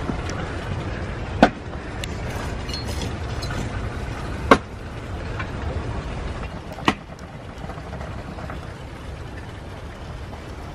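Wood fire burning in an open stone hearth: a low steady rumble broken by sharp single cracks every two or three seconds.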